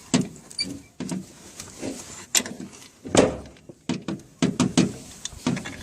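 Metal parts clinking and knocking as a propeller shaft and its universal joint bearing cup are handled and fitted, with one louder knock about three seconds in.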